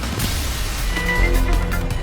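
Background soundtrack music with a heavy bass, swelling sharply just after the start.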